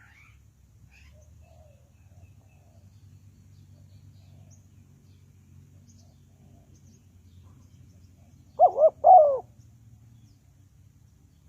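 Spotted dove cooing: one phrase of three notes about eight and a half seconds in, two short and a longer last one, over a faint low hum.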